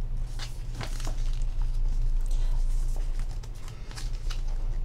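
Pages of a glossy photo book being turned by hand: a few short paper rustles and flicks over a steady low hum.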